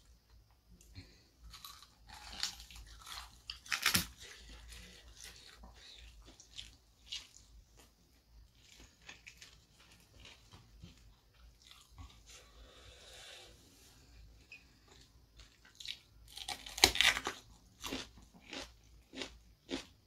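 Close-up eating sounds: chewing with crunchy bites, the loudest about four seconds in and a cluster of sharp crunches around seventeen seconds in. The later crunches come from biting into a raw round green eggplant eaten with crispy fried chicken and sambal.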